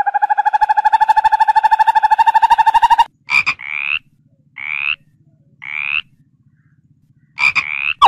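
A loud, fast-pulsed trill, slowly rising in pitch, cuts off about three seconds in. A frog then gives three short calls, each rising in pitch, about a second apart, over a faint low hum, with one more brief call near the end.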